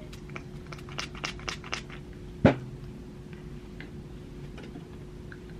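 Light plastic clicks from a Mario Badescu facial spray bottle being handled and pumped, about four or five a second for the first two seconds, then one sharp, louder burst about two and a half seconds in, as the mist is used to wet a flat makeup brush.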